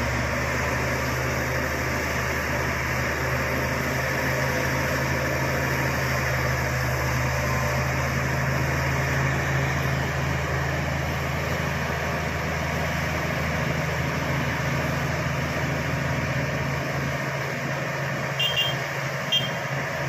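Diesel engines of a Shantui crawler bulldozer and a hydraulic excavator running steadily while the dozer pushes soil with its blade. Two short high-pitched beeps sound near the end.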